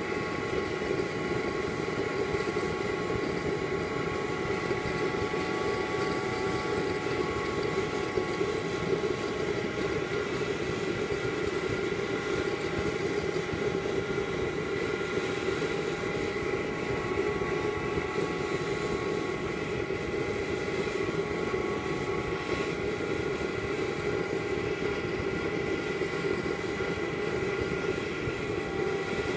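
Small forced-air waste-oil stove built from a fire extinguisher, burning steadily: a continuous combustion roar with several steady whining tones over it.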